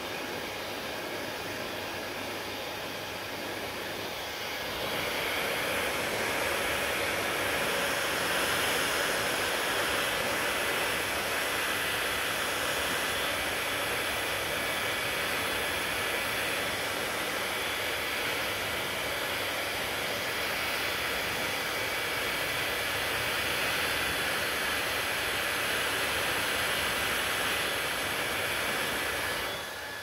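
Handheld hair dryer blowing a steady rush of air onto hair. It grows louder about four seconds in and drops back just before the end.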